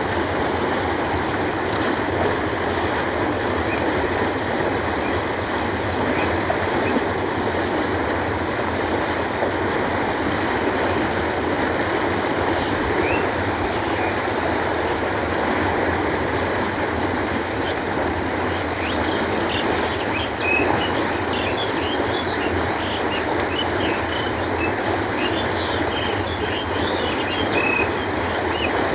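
Steady rushing of water flowing along a canal. In the second half, many short, high bird chirps sound over it.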